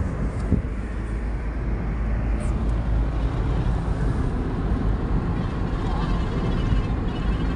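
Steady low rumble of a car's engine and tyres, heard from inside the cabin of a car moving along a highway.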